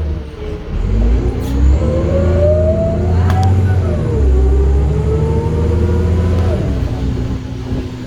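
2006 Nova Bus LFS city bus pulling away, its engine and transmission whine rising in pitch, falling at an upshift about four seconds in and again near the end. The drivetrain sounds like a Topodyn.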